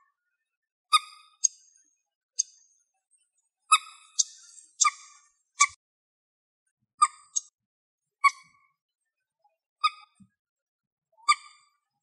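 Common moorhen calling: a series of short, sharp, clear-pitched calls, about a dozen at irregular gaps of roughly a second.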